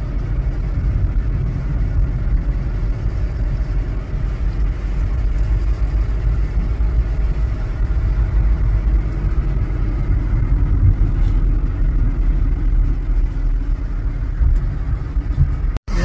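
Steady low rumble of a car driving along a road, heard from inside the cabin: engine and tyre noise. The sound cuts out for an instant near the end.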